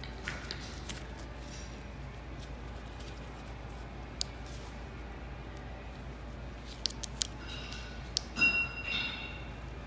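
Sharp metallic clicks and clinks from a motorcycle's hot start lever assembly being handled and fitted on the handlebar perch: one click about four seconds in, then a run of clicks and clinks, some briefly ringing, in the last three seconds. A steady low hum sits underneath.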